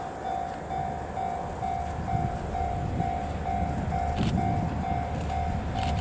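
Level crossing alarm ringing, a single electronic tone pulsing about twice a second, over the low rumble of a DE10 diesel-hydraulic locomotive approaching with passenger coaches. The rumble grows about two-thirds of the way through, and near the end sharp clicks of wheels over rail joints come in.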